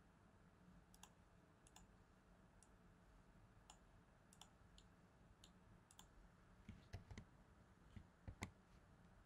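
Faint, scattered clicks of a computer mouse and keyboard over quiet room tone, with a few louder taps in the last few seconds.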